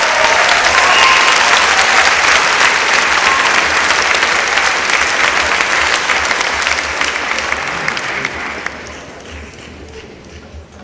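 Audience applauding, loud and steady, then dying away over the last couple of seconds.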